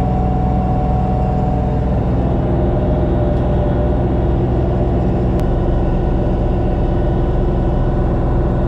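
LS MT232 hydrostatic compact tractor's three-cylinder diesel running steadily under load as it climbs a steep grass bank in low gear, heard from inside the closed cab. A thin whine rides over the engine drone and shifts lower about two to three seconds in.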